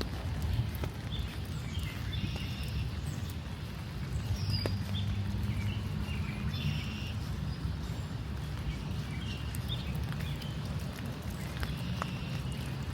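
Rain pattering and dripping in a forest, with the steady footsteps of someone walking along the path and a constant low rumble underneath. Short bird calls come through here and there.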